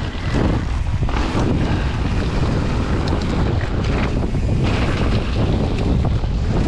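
Wind buffeting the microphone of a camera riding along on a mountain bike, a heavy steady rumble, with tyres rolling over the trail and a few light ticks.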